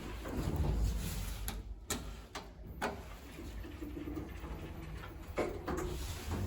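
Old Mitsubishi Elepet elevator car running, a steady low rumble broken by several sharp clicks and knocks and a low moaning tone in the middle. The noise is abnormal: the unit is worn, with its original control system never updated.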